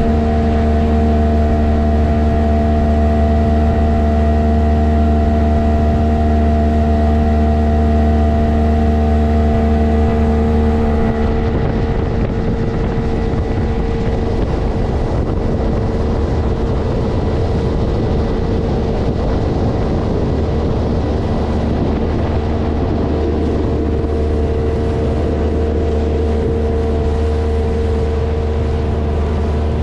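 Motorboat engine running steadily as the boat travels, a constant hum. About eleven seconds in, the sound changes and a rushing noise of wind and water grows over the engine.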